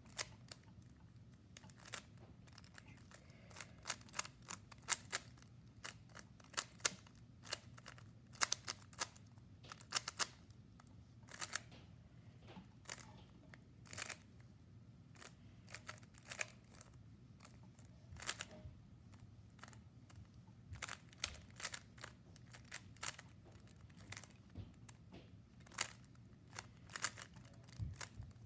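Rubik's Cube being turned during a speed solve: quick plastic clicks as the layers snap round, coming in short runs of a few turns separated by brief pauses.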